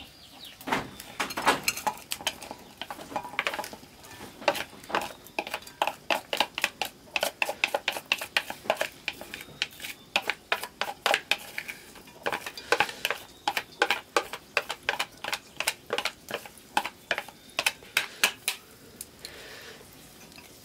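A wooden stirring stick clacking and scraping against a small metal pot as chopped food is tipped in from a bowl and stirred, in quick irregular knocks several a second.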